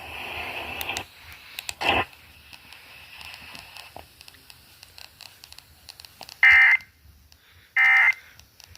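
Two short bursts of Emergency Alert System end-of-message data tones, the squawking digital SAME signal, about a second and a half apart near the end, over faint radio hiss with a crackle early on. They mark the close of the Amber Alert broadcast.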